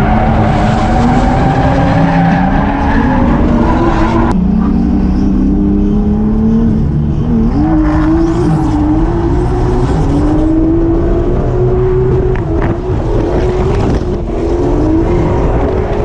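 Drift car engine revving hard up and down, heard from inside the cabin, with tyres screeching. The sound cuts abruptly about four seconds in to another run with the same rising and falling engine note.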